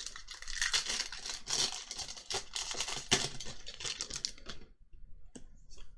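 Foil booster-pack wrapper being torn open by hand and crinkled, a dense run of crackling rips for about four and a half seconds, followed by a few light clicks and rustles of cards being handled.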